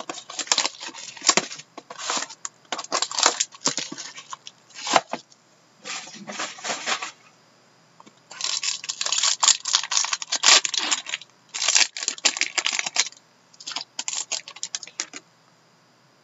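Plastic wrapping on a trading-card pack crinkling and tearing in irregular bursts as it is pulled open and the cards are handled. The bursts stop about fifteen seconds in.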